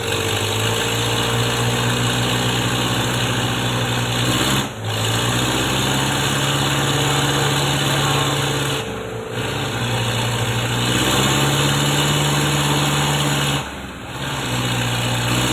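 Diesel engines of an off-road pickup and the loaded Mitsubishi Canter truck it is towing, running hard under load as they labour through deep mud. The steady drone dips briefly three times, roughly every four to five seconds, as the throttle eases.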